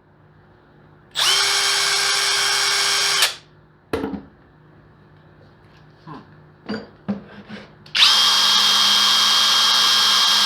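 Kobalt 24V cordless right-angle impact wrench spinning freely with no load, a steady high whine that reads about 86 to 87 dB on a sound meter. It runs for about two seconds, then a few clicks and knocks follow, and it runs again from about eight seconds in.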